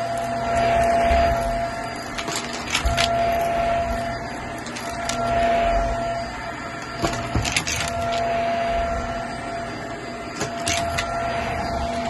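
Shark upright vacuum running with its brushroll off while pushed back and forth over an area rug: a steady motor whine under airflow noise that swells with each stroke, about every two seconds. A few sharp clicks and knocks of the head and hose come near the start, in the middle and near the end.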